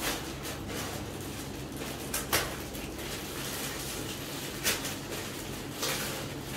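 Clear plastic packaging bag rustling and crinkling as a nightsuit is pulled out of it, with a few louder crackles.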